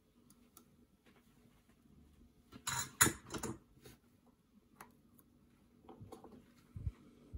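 A short burst of light metallic clatter about three seconds in as the soldering iron and solder are put down on the workbench, followed by a few faint ticks and taps from fingers handling the wires.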